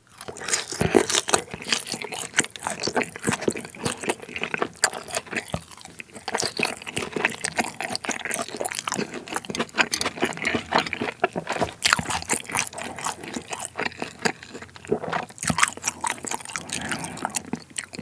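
Close-miked chewing of Sichuan-style tangsuyuk, battered fried pork in a spicy sauce: a dense run of crisp crunches and chewing clicks, with brief lulls about six seconds in and again near the end.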